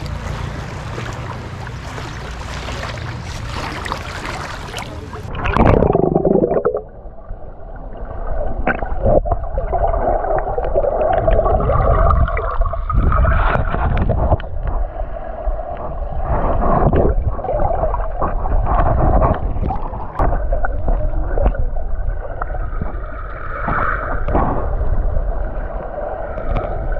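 Wind and sea noise on an action camera's microphone at the water's surface, then a splash about five seconds in as the camera goes under. After that comes the muffled sound of sea water heard underwater, with gurgling, bubbling and dull knocks.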